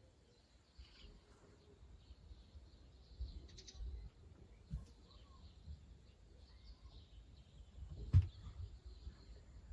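Wild birds chirping faintly outside an open window, with low rumbles and one sharp knock about eight seconds in.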